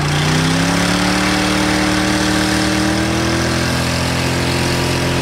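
SUV engine held at high revs while its wheels spin in a burnout, the pitch creeping up over the first few seconds and then holding steady.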